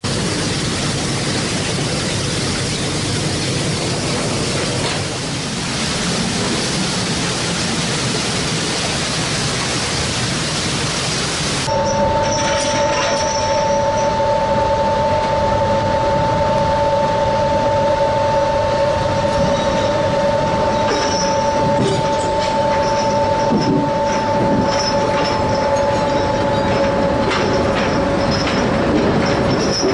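Fishing trawler machinery running with a dense, even mechanical noise. About 12 seconds in it cuts to deck machinery with a steady two-note whine and scattered rattles, heard while the trawl is being shot.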